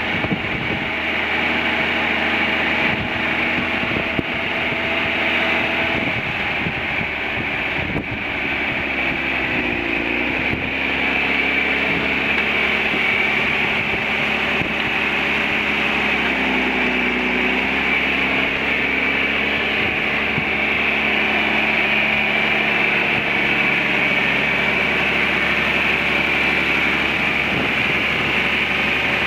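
1969 John Deere 4520 tractor's six-cylinder turbocharged diesel engine running as the tractor drives, with a steady high whine above the engine note. The engine pitch dips and recovers briefly twice, about ten and seventeen seconds in.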